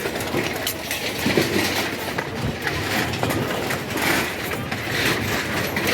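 Demolition noise: a steady mechanical rumble with many short clanks and knocks running through it.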